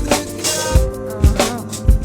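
Instrumental stretch of a hip hop beat: a heavy kick drum hits about four times under held melodic notes, with no vocal.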